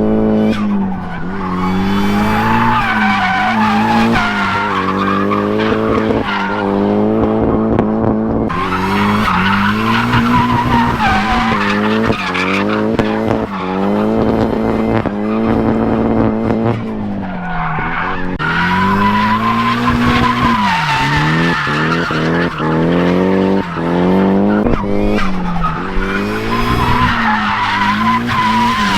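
Turbocharged Nissan S14 drifting: the engine revs climb and drop again and again, over a steady tire squeal. Turbo flutter chatters when the throttle lifts.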